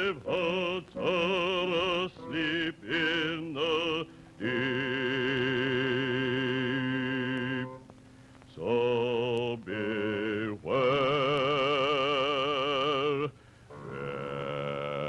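Operatic singing with a wide, fast vibrato: a run of short notes, then long held notes with brief breaks between them.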